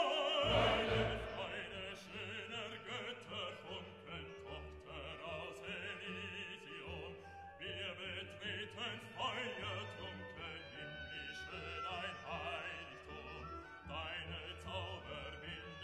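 Classical music: an operatic voice singing with orchestral accompaniment.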